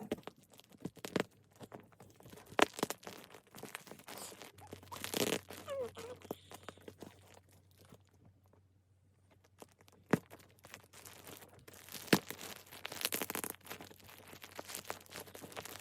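Packaging being handled and torn open: irregular crinkling, rustling and sharp crackles. The loudest crackles come a few seconds in and again about twelve seconds in, with a quieter lull in between.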